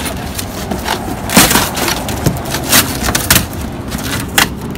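A cardboard box with its packing paper being torn open and crushed flat by hand: several sharp rips and crunches of cardboard and paper at uneven intervals, over a steady low rumble.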